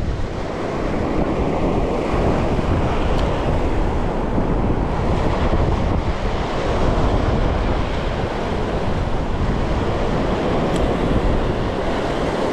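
Surf washing over a rocky reef shoreline, with wind buffeting the microphone: a steady, loud rushing noise heaviest in the low end.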